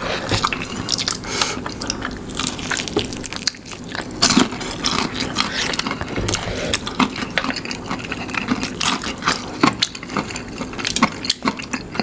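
Close-miked eating sounds from sauce-covered fried chicken: irregular wet smacks and sticky squelches as a piece is pressed and turned in thick chili sauce, mixed with chewing and lip smacking.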